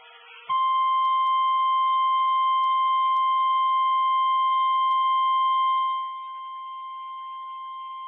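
NOAA Weather Radio 1050 Hz warning alarm tone: one steady, unbroken high tone. It starts about half a second in and drops in level about six seconds in. It signals that a warning, here a flash flood warning, is about to be read.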